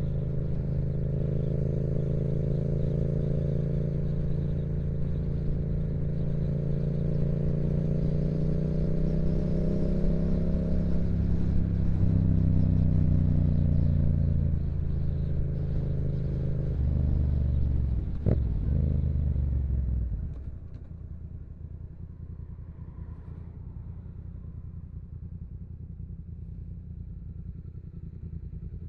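A 2016 Yamaha MT-07's parallel-twin engine through a Yoshimura aftermarket exhaust, running under way with its pitch drifting gently up and down. About eighteen seconds in its pitch spikes up and back down quickly. A couple of seconds later it drops to a quieter, steady low rumble.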